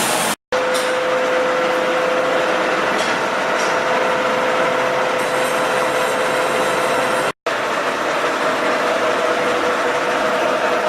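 Workshop machinery running steadily: a dense mechanical whirr with a steady tone through it. The sound cuts out twice for a split second, early on and about two-thirds through.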